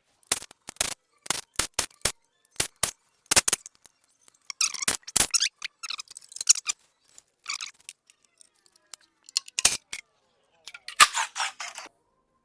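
Irregular metallic clicks, clinks and clanks of hand tools and bolts against metal, some with a short ring, as the timing cover is unbolted from a Ford Boss V8 engine.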